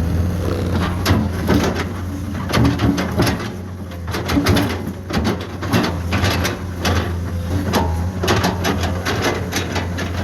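Komatsu PC210 excavator's diesel engine running steadily, with many sharp clacks and rattles in irregular clusters over it.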